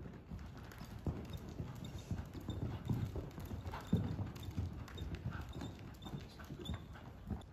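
Hoofbeats of a ridden grey horse moving briskly over the sand footing of an indoor arena: a steady run of dull, low thuds.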